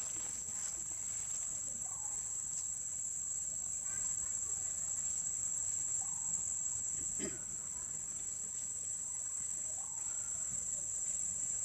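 Steady high-pitched drone of a forest insect chorus, with a few faint short sounds over it, the clearest about seven seconds in.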